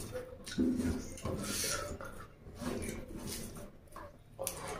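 Eating sounds: wet chewing and lip smacks, and a hand squishing and mixing rice with oily curry on a steel plate, in short irregular bursts.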